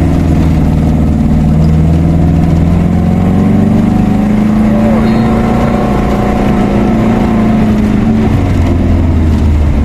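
Car engine running, heard from inside the cabin while driving slowly: a steady drone whose pitch rises a little a few seconds in and drops back near the end.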